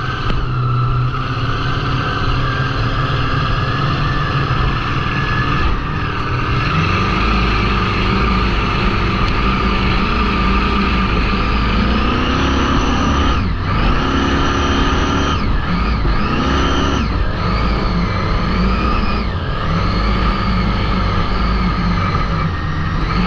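Open V8 engine of a small hot boat running hard at speed. Its pitch climbs about six seconds in, then near the middle drops and comes back three times in quick succession as the throttle is eased and reapplied.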